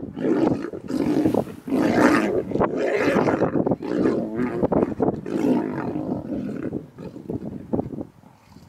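Lionesses growling loudly and almost continuously as they fight over a kill, dying down about seven seconds in.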